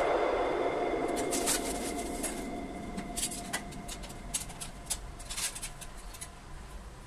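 Scattered sharp plastic clicks and rattles from a toilet-cistern flush valve being handled, its height-adjustable column pulled out and set, over a background noise that fades away over the first few seconds.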